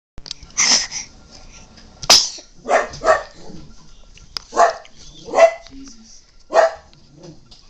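A dog giving about seven short, sharp barks, spaced roughly a second apart.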